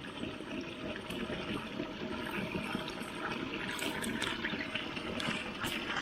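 Running water flowing steadily, with a few faint clicks over it.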